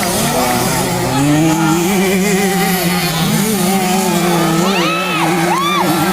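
Small two-stroke 65cc motocross bikes running, engine pitch wavering, with several quick revs rising and falling near the end.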